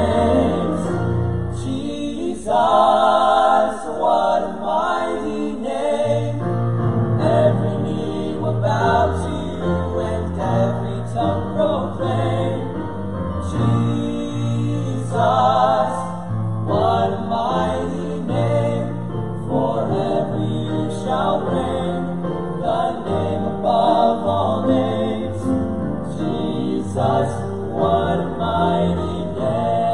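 Male vocal quartet singing a gospel song together into handheld microphones, phrase after phrase.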